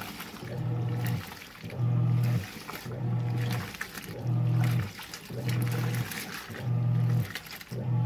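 Giantex portable washing machine agitating a load: its motor hums low in short runs of under a second, about one a second, as the agitator churns the clothes. Water sloshes and splashes in the tub between the runs.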